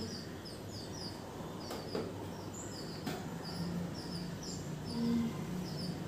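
Nestling songbirds chirping to beg for food as they are hand-fed: a quick run of short, high chirps, several a second.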